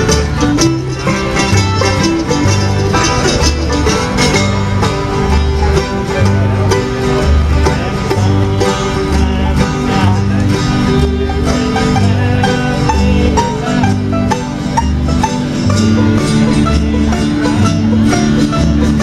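Bluegrass band playing a number with no singing: picked banjo and guitar over a bass that alternates steadily between two low notes.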